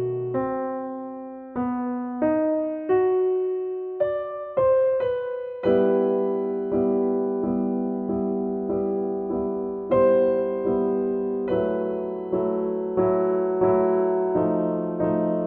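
Background piano music: a slow, gentle melody of single notes that each ring and fade, joined by sustained chords about six seconds in.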